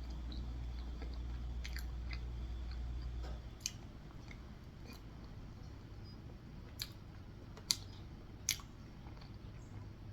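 Close-up chewing of soft frosted red velvet cake, with a few sharp clicks about a third of the way in and then three more later on. A low hum underneath stops about a third of the way in.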